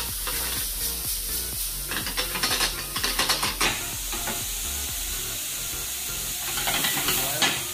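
Green peas, onion, celery and leek sizzling in oil in a stainless steel pan while being stirred, a spoon scraping and clicking against the pan in flurries about two to three and a half seconds in and again near the end.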